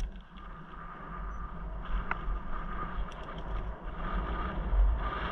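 Mountain bike rolling downhill on a rough, cracked lane: tyre noise with wind buffeting the camera microphone, and a few small clicks and rattles. It grows louder as the bike picks up speed.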